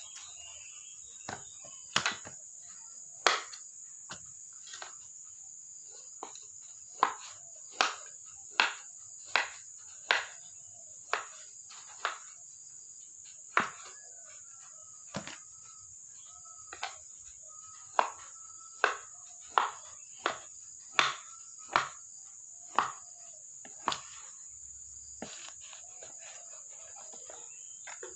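Kitchen knife slicing through tempeh and striking a wooden cutting board: about two dozen sharp knocks, roughly one a second and unevenly spaced. A steady high insect drone runs behind.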